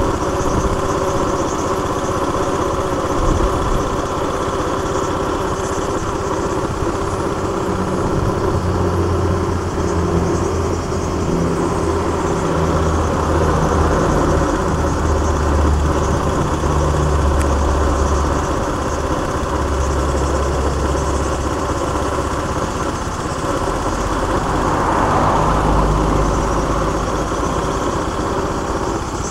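An engine running steadily: a low rumble that rises and falls in strength under an even hum.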